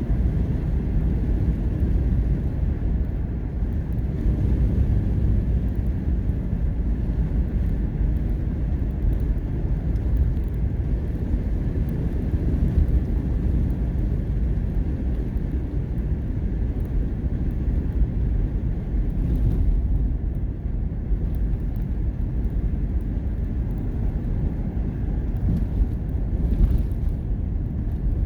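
Steady low rumble of a vehicle driving along a road, heard from inside the cabin: road and engine noise at an even level throughout.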